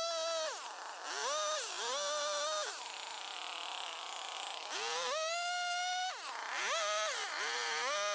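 Two-stroke chainsaw revving up and dropping back in short bursts, about six times, while cutting down small trees.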